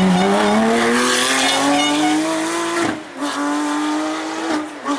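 Porsche 911 rally car's flat-six engine accelerating hard out of a hairpin, its note climbing steadily. It breaks briefly twice for quick upshifts, about three seconds in and near the end, as the car pulls away.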